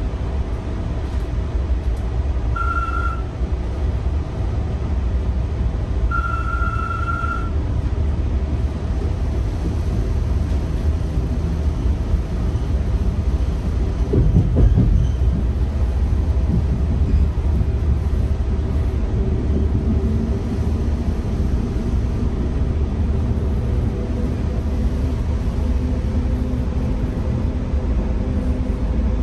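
Stadler FLIRT diesel multiple unit commuter train running along the track with a steady low rumble of wheels and drivetrain. Two short high tones sound early on, a louder clatter comes about halfway through, and in the last third a hum climbs slightly in pitch.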